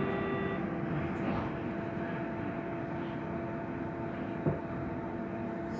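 Berlin S-Bahn class 485 electric train standing at a platform: a steady hum with one constant tone, and a single short click about four and a half seconds in.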